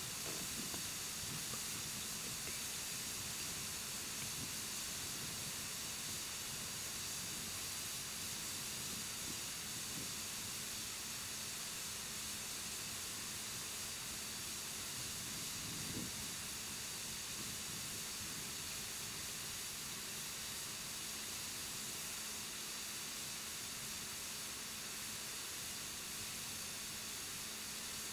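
Steady hiss of air escaping from a large 20.8R38 Firestone tractor inner tube as it slowly deflates, leaking where a patch has let go.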